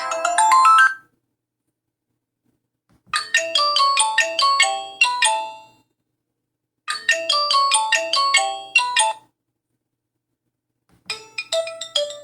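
Alcatel 3025 mobile phone playing its built-in tones. The last quick rising notes of one tune end about a second in. A short melody of quick notes then plays twice with silent pauses between, as the tone loops. A different melody starts near the end.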